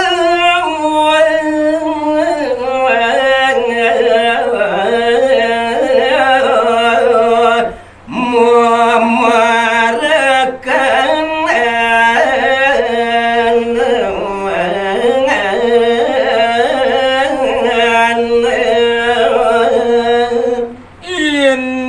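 A man singing a line of Balinese geguritan in pupuh Sinom, unaccompanied: long held notes with wavering, melismatic ornaments. There is a short break for breath about eight seconds in and another near the end.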